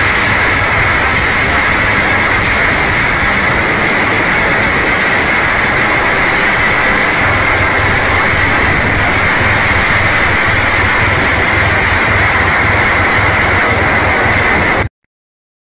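Loud, steady static noise that cuts off suddenly near the end.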